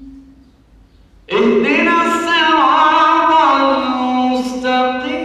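A young man's voice chanting Quran recitation (tilawa) into a microphone, unaccompanied. After about a second's pause he starts a new phrase with long held notes that slide and waver between pitches.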